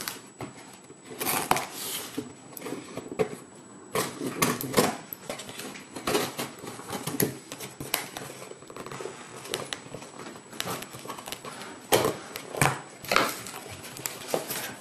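Cardboard shipping box being handled and opened by hand: irregular scrapes, taps and crinkles of cardboard as the box is worked open and its flaps pulled apart, with a few sharper knocks.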